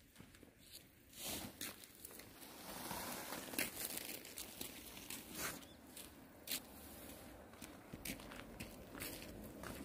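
Black mesh shade net rustling and crinkling as it is pulled off stacked sacks and dragged across asphalt, with scattered clicks. Fainter for the first second, then irregular rustles.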